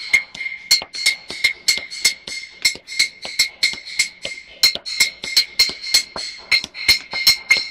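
Instrumental music built on rapid, sharp percussive clicks, the strongest about three a second, over a steady high held tone.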